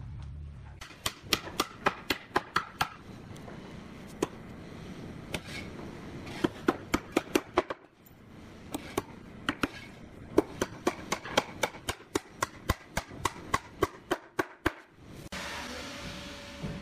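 Hammering at wood: rapid runs of sharp strikes, about three or four a second, broken by two short pauses. Near the end the strikes stop and a steady hiss with a faint hum takes over.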